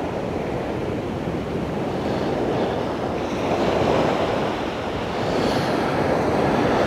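Sea surf washing on a sandy beach, a steady rushing that swells about halfway through and again near the end, with wind rumbling on the microphone.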